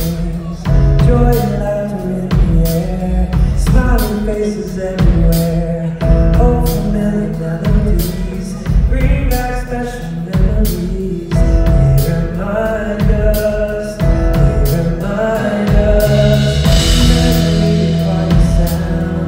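Male lead vocalist singing live into an amplified microphone, backed by a band with drum kit, bass and keyboard keeping a steady beat.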